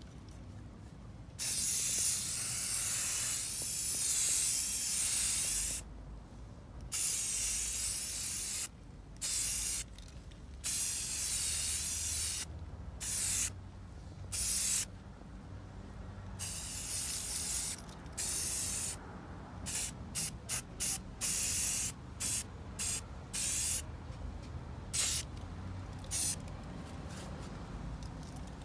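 Aerosol spray paint can hissing in on-and-off bursts: a long spray of several seconds, then shorter ones, with a run of quick short taps past the middle.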